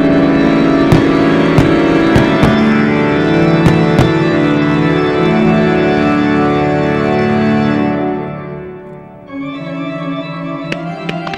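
Organ-led show music playing loud, with several sharp bangs of firework shells over it in the first four seconds. The music dies away about eight seconds in, and a new passage starts a second later with a quick run of sharp cracks near the end.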